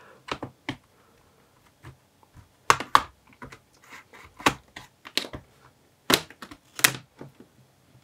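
Plastic clips of a Lenovo IdeaPad 3 laptop's bottom cover snapping loose as a plastic pry tool is worked along the edge. The cover gives a scatter of sharp, irregular clicks, about a dozen, with the loudest ones clustered a little under halfway through and again near the end.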